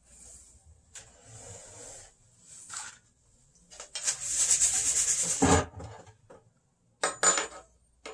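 Rubbing and scraping as a person moves about close to the microphone. The noise is loudest in a stretch about four seconds in, ending in a dull thump, and two short sharp knocks follow near the end.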